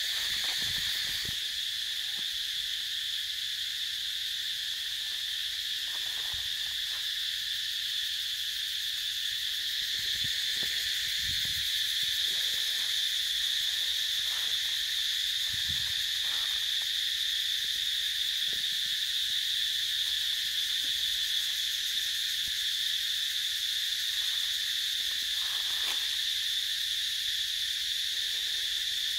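Dense chorus of forest insects: a steady, high-pitched drone that never lets up, with a few faint low thumps underneath.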